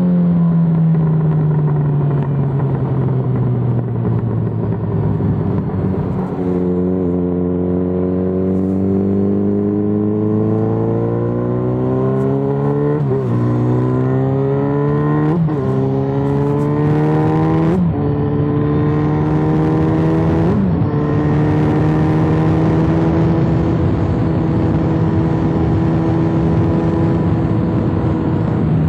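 Yamaha XJ6N's 600 cc inline-four running through an Arrow full exhaust. The engine note falls slowly for the first several seconds, then rises and bends through the middle with four sharp cracks from the exhaust, and holds at a steady pitch near the end.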